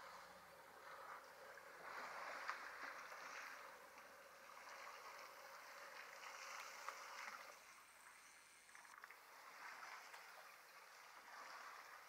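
Faint splashing and trickling of water as elephants drink, sucking it up and squirting it from their trunks. It comes and goes in soft swells with a few small clicks.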